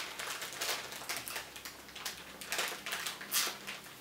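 Plastic wrapping around a replacement laptop keyboard crinkling and rustling in irregular crackles as it is pulled open by hand.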